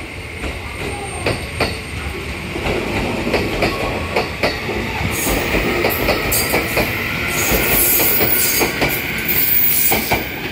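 JR Kyushu 811 series electric commuter trains pulling out of the station, wheels clicking over rail joints and points and growing louder. From about halfway there is a high squeal from the wheels.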